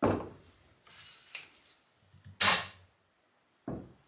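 A few sudden knocks and scraping handling sounds: a sharp knock at the start, a louder scrape about two and a half seconds in, and two shorter knocks near the end.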